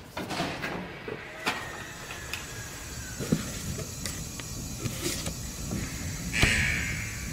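Scattered clicks and knocks, then two strong hissing pulses about a second apart near the end, which are the loudest sounds.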